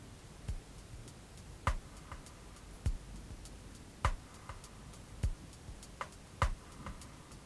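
Quiet background music with a sparse ticking beat: soft clicks about every second and a bit, some followed by a faint tone.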